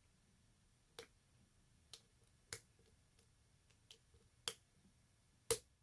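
A lock pick and tension wrench working the pins of a lock, making about six small, sharp metal clicks at irregular intervals, the loudest near the end.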